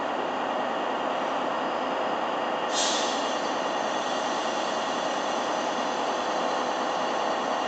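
DB class 218 diesel-hydraulic locomotive's diesel engine running steadily at low revs. About three seconds in, a sudden hiss of compressed air starts and carries on more softly.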